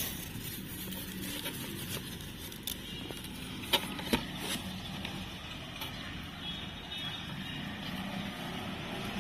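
Hamsters scrabbling over dry food pellets and newspaper, with two sharp clicks about four seconds in, over a steady low background rumble.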